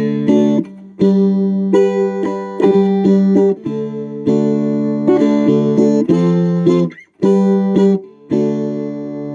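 Four-string cigar box guitar with a lipstick pickup, played through an amplifier: chords picked and left to ring, some notes gliding in pitch, with short breaks between phrases.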